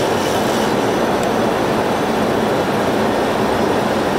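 Steady rushing noise of a Boeing 737 flight deck in flight on approach: airflow around the cockpit and air-conditioning, even and unbroken.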